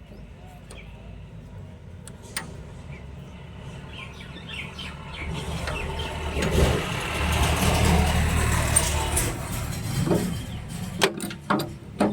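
A vehicle engine running, growing louder over a few seconds and then fading again, over a steady low hum. A few sharp clicks near the end.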